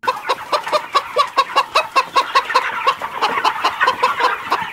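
Chicken clucking in a rapid, even run of about five clucks a second, starting and stopping abruptly.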